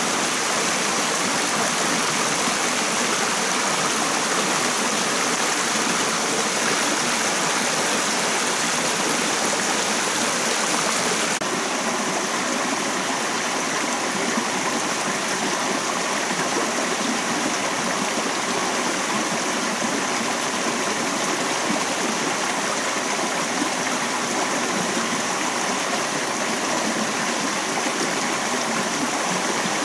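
Shallow rocky stream running over stones and small cascades, a steady rush of water. About eleven seconds in the sound shifts slightly, with a little less hiss.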